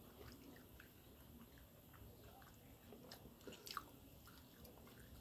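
Faint chewing of food by people eating, with small scattered mouth clicks and one slightly louder click about three and a half seconds in.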